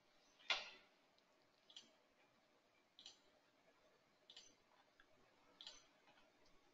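Faint computer mouse clicks: five single clicks spaced about a second and a quarter apart, the first the loudest.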